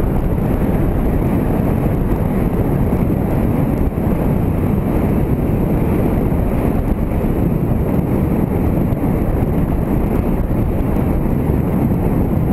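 Steady rumbling wind noise on the microphone of a moving motorcycle, mixed with the bike's running noise.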